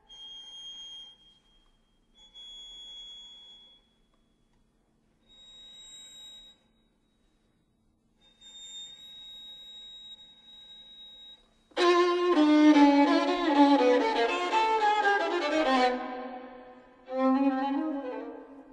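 Solo violin playing a sparse avant-garde piece: several quiet, very high, thin held notes separated by silences. About twelve seconds in, a sudden loud passage of several notes steps downward in pitch, and a second loud stroke comes near the end.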